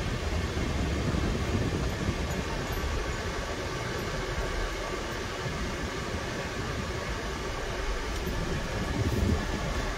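Car interior noise while driving slowly: a steady low rumble of engine and tyres with a constant hiss, heard from inside the cabin.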